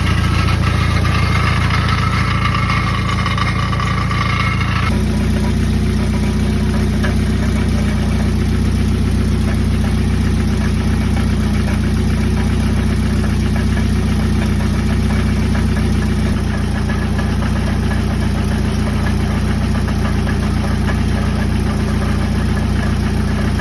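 1995 Jeep Wrangler YJ's 2.5-litre four-cylinder engine idling steadily with a rattle. The rattle comes from a blown-out catalytic converter and muffler baffle resonating through the exhaust system. About five seconds in, a higher layer of the sound drops away and the idle carries on lower.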